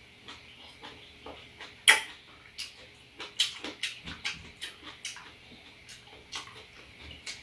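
Close-up eating sounds of two people eating ripe apricots: wet chewing, lip smacking and small mouth clicks, with one sharp click about two seconds in.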